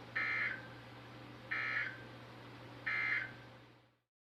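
Three short bursts of Emergency Alert System SAME digital data tones, the buzzy two-tone warble of the End of Message code that closes a weather radio alert, about a second and a half apart over a steady low hum. The audio fades out just before the end.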